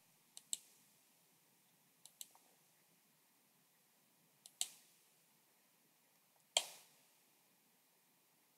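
Computer mouse clicking, a handful of single sharp clicks a second or two apart over near silence, the loudest about six and a half seconds in.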